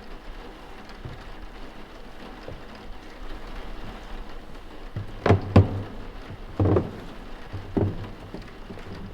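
Steady rain, with a few knocks over it: two sharp knocks close together a little past halfway, then two duller thumps about a second apart.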